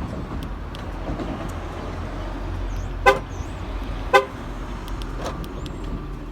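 Dodge Grand Caravan horn giving two short chirps about a second apart over a steady low rumble. The chirps are the van's response to its key fob working, with no alarm going off.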